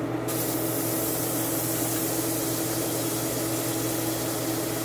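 Butter sizzling in a hot pot: a steady hiss that starts suddenly just after the spoonful goes in and holds even.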